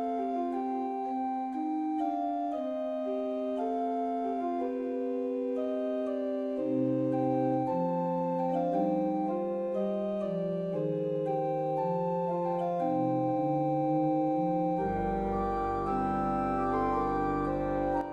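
Soft background music of slow, sustained keyboard chords, with lower bass notes joining about halfway and a deep bass swell near the end before it drops away.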